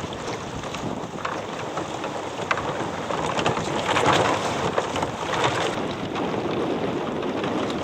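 Wind buffeting the microphone and water splashing and spattering around a sailing dinghy under way, with many small crackling splashes, heaviest about halfway through.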